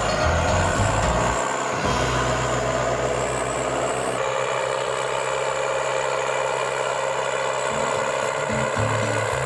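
Heavy diesel forestry machine running steadily, mixed with background music.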